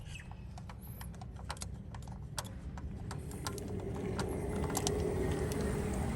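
Irregular light clicks and taps of hands and tools working on engine-bay parts, with a faint steady hum coming in about halfway.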